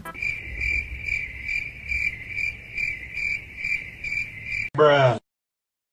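Crickets chirping in an even rhythm, about three chirps a second. Near the end the chirping stops, a brief vocal sound follows, and the audio cuts to dead silence.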